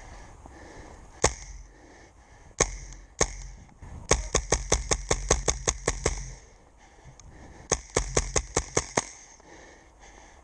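HPA-powered airsoft rifle, a Tippmann M4 V2 replica, firing: three single shots, then a fast string of about a dozen shots at roughly six a second, and after a pause a second string of about eight.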